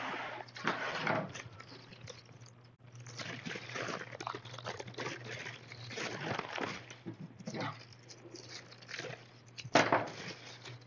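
Thin plastic bag rustling and crinkling as it is handled, coming and going unevenly, with one louder crinkle near the end.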